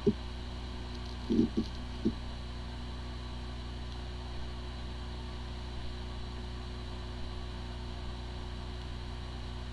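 Hard drive spinning with a steady whir and hum, with a few brief low noises just over a second in. It sounds like a healthy drive, yet it has corrupted firmware and the computer cannot detect it.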